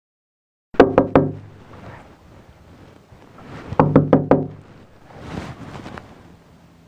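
Knocking on a door: three quick knocks, then about three seconds later another round of about four.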